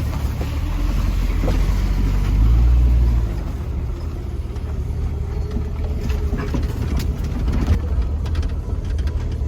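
Stock Jeep driving on the road, with a steady low engine and road rumble that swells louder about two and a half seconds in, then eases back.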